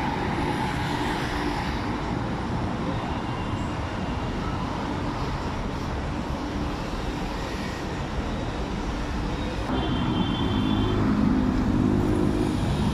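City street traffic: vehicle engines and tyres running past steadily, getting louder over the last few seconds as vehicles come close, with a brief high whine about ten seconds in.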